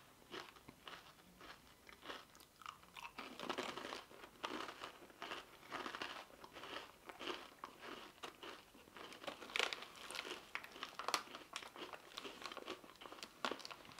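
A person chewing crunchy wasabi rice crackers with mouth closed: a steady run of irregular crisp crunches, with a few sharper, louder cracks in the second half.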